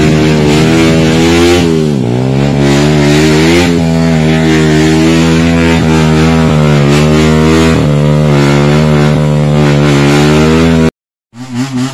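Enduro dirt bike engine running steadily on a trail ride, its pitch dropping and picking up again about two seconds in and wavering at several points after as the throttle is eased and opened. It cuts off suddenly near the end.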